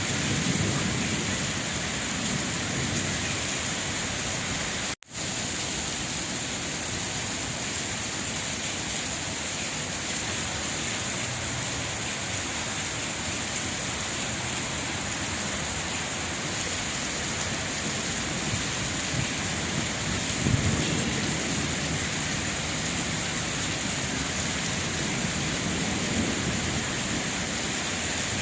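Steady rain falling, with low rumbles swelling at the start and again about twenty seconds in. The sound cuts out for an instant about five seconds in.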